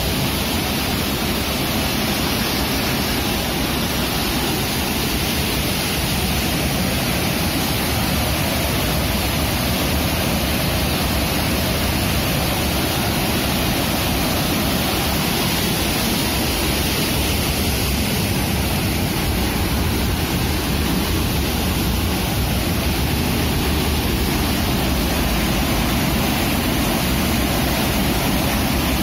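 Water rushing through the open sluice gate of a river barrage, a loud, steady rush of churning white water.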